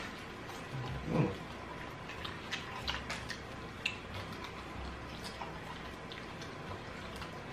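Quiet scattered clicks and crackles of people eating hot fried chicken wings with their fingers, with a short murmur about a second in.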